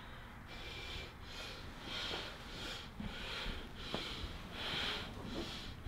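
A person breathing hard, with quick, audible breaths repeating about every 0.7 seconds.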